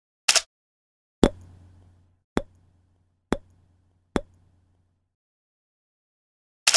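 Six sharp knocks and clicks of hard objects being handled, the last after a longer pause; the second is the loudest, with a low hum trailing off after it for a few seconds.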